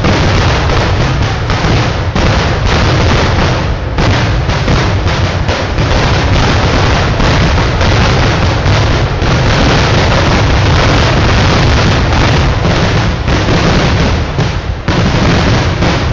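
Fireworks display: a rapid, unbroken barrage of firecracker bangs and booms so closely packed that they run together, with a brief let-up near the end.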